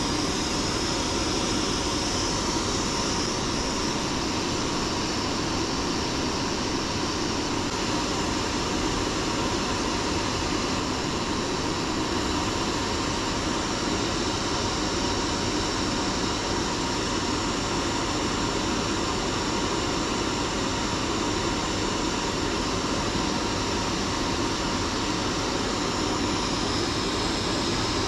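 Steady rushing air from a fan-driven blower, with a faint steady whine in it.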